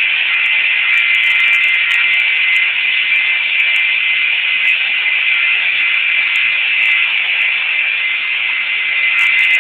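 Table saw running steadily with a high, even whine, no cut or impact heard.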